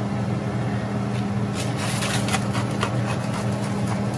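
Salmon fillets simmering in coconut-milk sauce in a grill pan, giving scattered small crackles and pops over a steady low hum.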